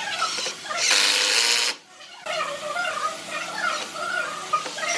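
Cordless impact driver running for just under a second, driving a long screw into a wooden frame, then stopping abruptly.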